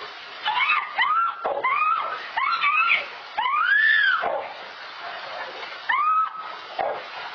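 A woman screaming as dogs attack her, recorded by a surveillance camera's microphone over a steady hiss: a run of short high cries, a long drawn-out scream about four seconds in, and another cry near six seconds.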